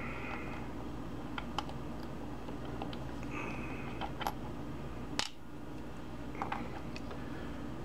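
Scattered small metal clicks and taps from a pin tumbler lock and its tools being handled while the lock is taken apart, with a brief scrape about three seconds in and the loudest click a little after five seconds, over a steady low hum.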